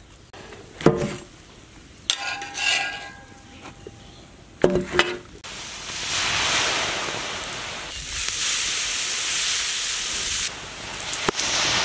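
A few metal clanks and scrapes of a spatula on a flat metal griddle, one ringing briefly, then a loud steady hiss as water thrown on the hot griddle flashes to steam. The hiss drops away near the end and starts again with a second pour.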